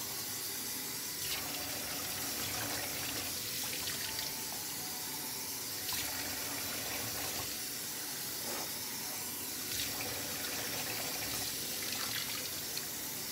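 Kitchen faucet running steadily into a stainless steel sink, a plastic cup repeatedly filled under the stream and poured out over a puppy being rinsed.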